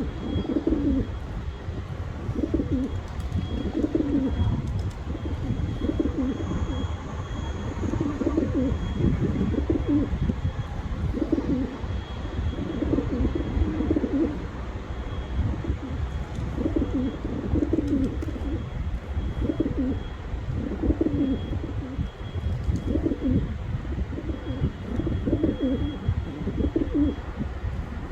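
Pigeons cooing over and over, a low throaty coo phrase every second or two, over a low background rumble.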